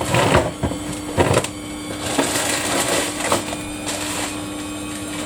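Samsung washing machine running a Daily Wash 30 cycle: a steady hum with sharp clattering knocks near the start and about a second in, then softer rustling clatter.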